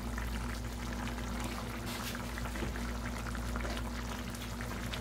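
Rice, pork and sausage in water at a rolling boil in a cast-iron pot: a steady bubbling with many small pops, over a low steady hum.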